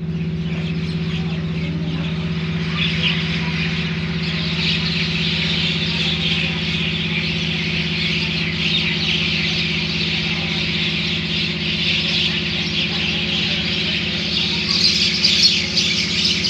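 A large roosting flock of mynas, about a hundred birds, keeping up a dense, continuous chatter of squawks and chirps that grows louder near the end. A steady low hum runs underneath.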